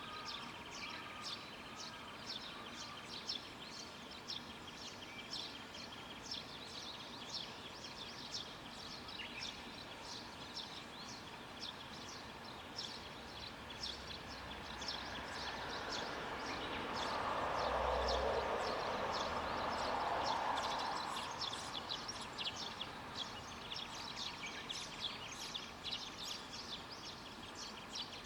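Small birds chirping continuously in quick, high notes. A noisy swell builds and fades over several seconds a little past the middle, typical of a vehicle going by.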